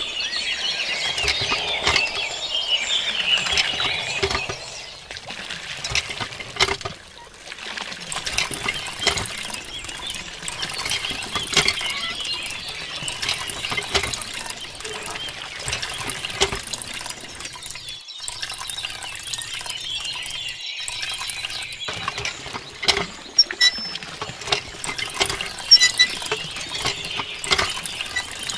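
Water trickling and splashing from a small pipe into a shallow plastic basin as it fills, with scattered small drips and plops.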